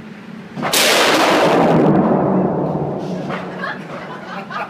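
A single .50 caliber rifle shot about two-thirds of a second in, a sudden very loud blast that overloads the recording and rings on in the enclosed range before dying away over about two seconds.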